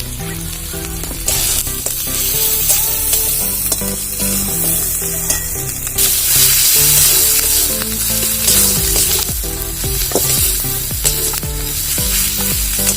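Masala of onion paste, ginger-garlic paste and turmeric frying in oil in a kadai, sizzling steadily while a spatula stirs and knocks against the pan; the sizzle gets louder about six seconds in. Soft background music with a melody plays underneath.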